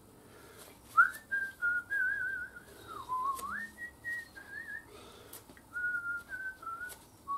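A person whistling a wavering tune, note by note, with a few faint clicks of parts being handled.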